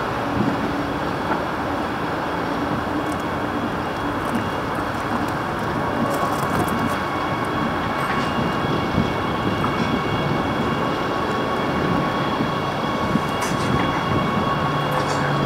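Electric commuter train running along an elevated viaduct: a steady rumble of wheels on rail, with a thin steady whine over it from about six seconds in.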